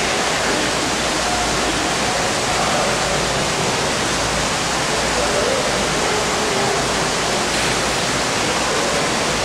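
Steady, even rushing noise like running water, unchanged throughout.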